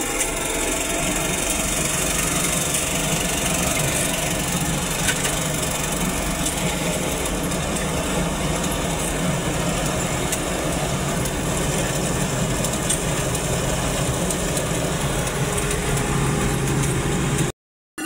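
Combine harvester running steadily while working through a standing crop, heard from the operator's cab: a continuous engine drone with the clatter of the cutting and threshing machinery. The sound breaks off sharply just before the end.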